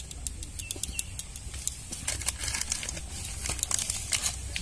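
Scattered light clicks and rustles as spices are added to raw chicken pieces in a steel bowl, with a couple of short high chirps about a second in.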